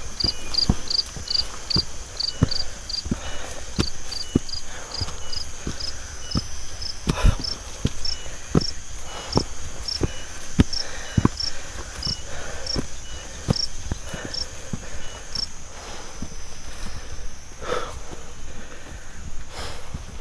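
Footsteps of a hiker walking up a trail, about one to two steps a second. Behind them an insect chirps in a regular high pulse that slows and stops about three-quarters of the way through, over a steady high insect drone.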